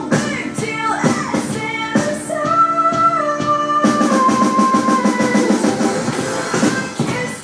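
Pop song with a woman singing long held notes over a steady drum beat, played along on an electronic drum kit.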